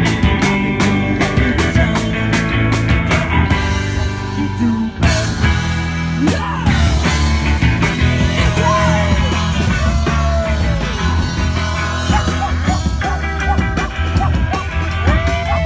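Live rock band playing, with sustained notes that bend up and down and a steady beat; the cymbal strokes drop out a few seconds in and return near the end.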